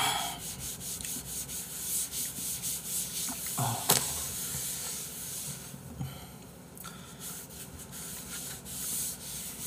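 Paper tissue rustling and rubbing as it is handled, in quick scratchy strokes, with a sharp click about four seconds in.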